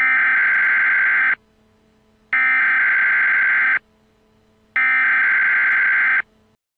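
Three bursts of Emergency Alert System SAME header data tones, each about a second and a half long with about a second between them. These are the coded header that opens an EAS alert message.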